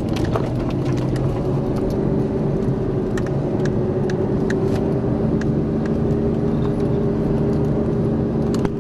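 Off-road 4x4's engine running at a steady, even speed, heard from inside the cab, with scattered light clicks and knocks over it.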